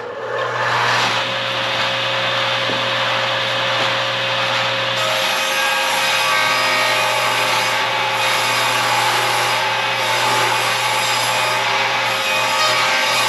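Portable jobsite table saw switched on, its motor spinning up within about a second, then running steadily while a wooden board is fed through and cut, the sound of the cut changing about five seconds in.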